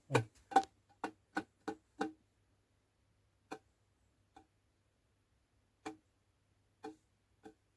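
Sharp hard taps, each with a brief ring: a quick run of about seven in the first two seconds, then five more spaced a second or so apart.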